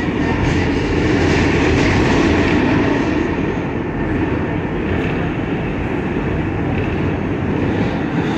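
R142A subway car running fast through a tunnel, heard from inside the car: a steady, loud rumble of wheels on rail.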